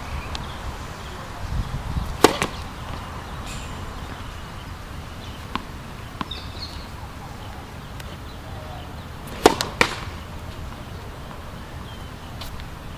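Tennis racket striking a ball on the serve: sharp pops, one about two seconds in and a close pair about nine and a half seconds in, with a few lighter taps of the ball bouncing on the hard court in between.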